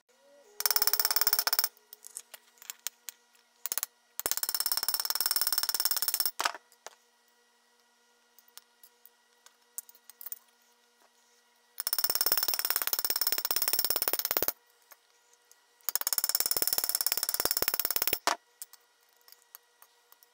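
A small electric power tool switched on and off four times, running with a buzzing whine for one to about three seconds each time and stopping abruptly.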